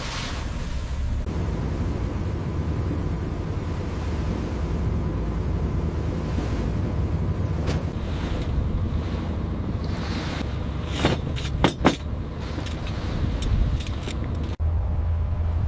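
Crab boat underway at sea: its engine runs with a steady low rumble under wind and wave noise. A few brief sharp hits come about eleven to twelve seconds in.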